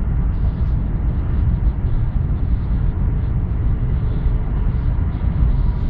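Steady low rumble of a Stadler Flirt (NSB Type 74) electric train running along the line, heard from inside the passenger cabin.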